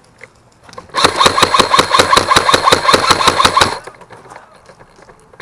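Airsoft gun firing a full-auto burst: a rapid, even rattle of shots lasting about two and a half seconds, starting about a second in.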